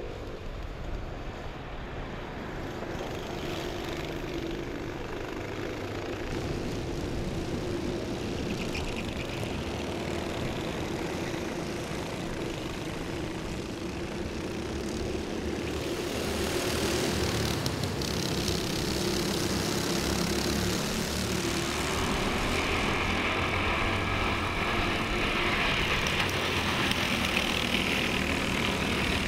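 A pack of Honda Cadet racing karts with small single-cylinder four-stroke engines, buzzing steadily at high revs as they race past, louder in the second half.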